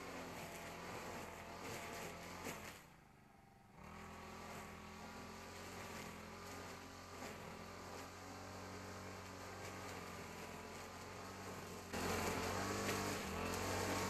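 A Honda GX35 four-stroke brush cutter running steadily at working speed while cutting grass along a path edge. The sound drops out for about a second near three seconds in and is louder from near the end.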